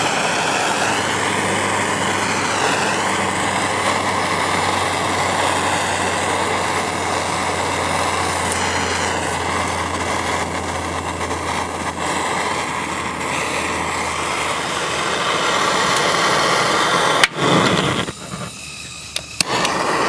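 Propane torch flame rushing steadily as it is played over a microwave's internal parts, with a low hum underneath that fades out about two-thirds through. Near the end there is a sharp click and the rushing briefly drops away.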